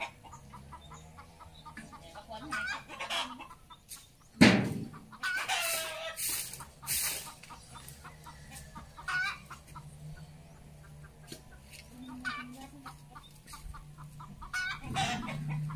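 Chickens clucking and calling in short bursts, with one sharp knock about four and a half seconds in, the loudest sound.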